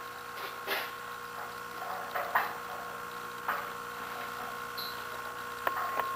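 A handful of sharp, irregularly spaced clicks as the control knob on a gas water heater's gas valve is turned and pressed, over a steady faint hum.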